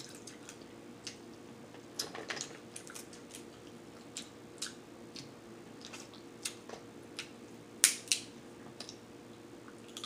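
Snow crab legs being eaten by hand: shells cracked and snapped apart, the meat sucked and chewed, heard as scattered sharp cracks and clicks with soft mouth sounds. The loudest is a pair of cracks about eight seconds in.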